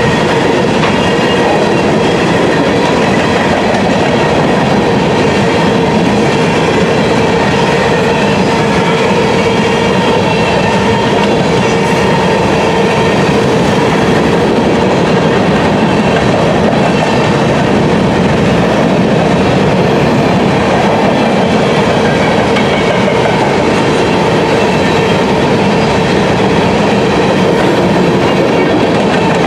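Freight train of covered hopper cars rolling past at close range: steel wheels running on the rails with a clickety-clack, loud and steady throughout, with a few steady ringing tones held under the rolling noise.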